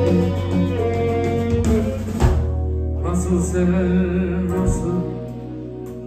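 Live band playing an instrumental passage of a Turkish folk-style song on electric guitar and keyboard over a steady bass. About two seconds in a sharp hit lands and a chord is held, and the music grows quieter near the end.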